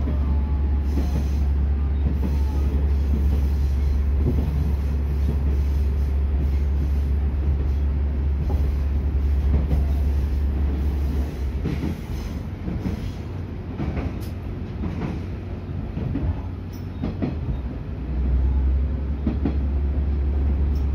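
Diesel railcar on the Tadami Line running, heard from inside the carriage: a steady low engine drone with the rattle and clicks of wheels over the rails. A little past halfway the engine drone drops away for several seconds, then comes back near the end.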